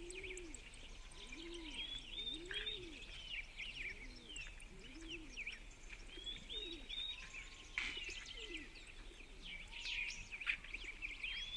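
Faint birdsong: small birds chirping and twittering throughout, with low, repeated arching cooing calls underneath.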